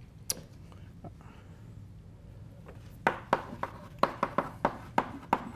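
Chalk tapping and scraping on a blackboard as an equation is written. After a quiet stretch with one click, a quick run of sharp chalk taps starts about three seconds in, about four a second.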